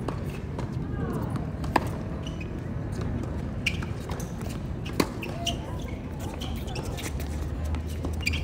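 Tennis ball hit with rackets and bouncing on a hard court: a few sharp single knocks, the loudest about two and five seconds in.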